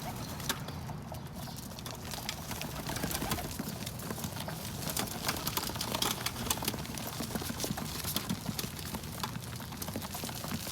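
Pigeons pecking at sunflower seeds on a hard rooftop surface: a quick, irregular run of sharp taps and clicks.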